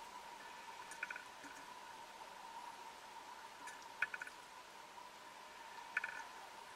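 Faint underwater recording: a steady high-pitched hum with three short bursts of rapid clicking, about a second in, near the middle and near the end.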